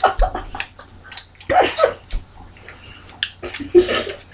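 A person's breathy hissing and huffing through the mouth after a shot of lemon juice, in several short bursts with a brief muffled vocal sound about a second and a half in.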